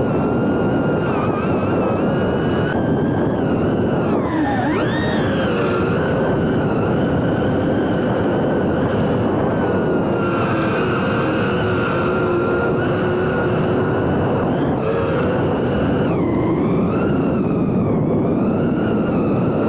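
FPV quadcopter's electric motors and propellers whining over a steady rush of air noise, the pitch shifting with throttle: a deep swoop down and back up about four seconds in, and another dip near sixteen seconds.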